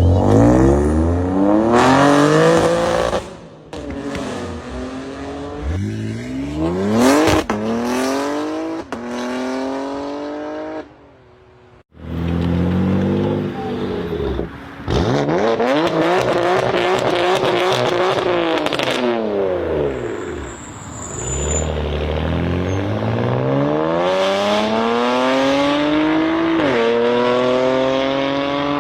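BMW M cars' engines accelerating hard, a series of different cars one after another. The pitch climbs through each gear and drops back at each upshift, with a brief gap about twelve seconds in where one car gives way to the next.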